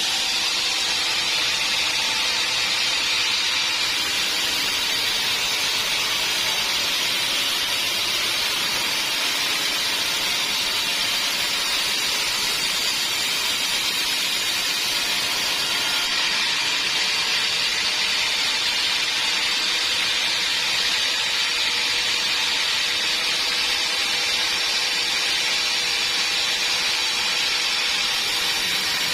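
Sawmill band saw running steadily, a constant high hiss with faint steady tones under it, unchanging throughout.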